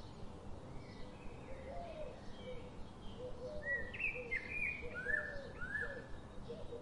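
Birds chirping: short rising chirps, busiest past the middle, and repeated lower calls, over a steady hiss.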